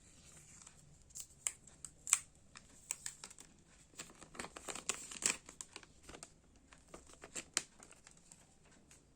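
Phone packaging being handled: plastic and paper crinkling with scattered small clicks and taps, busiest around the middle.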